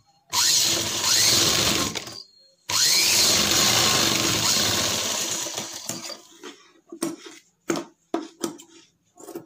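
Sewing machine stitching a kurti's shoulder seam in two runs of about two seconds each with a short pause between, the second run slowing to a stop. A few short clicks and knocks follow.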